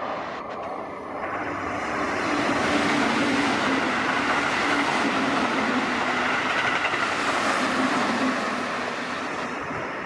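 Keihan 3000 series electric train passing through the station at speed. The rumble of its wheels on the rails swells over the first two seconds, holds for several seconds, then fades near the end, with a steady low hum beneath it.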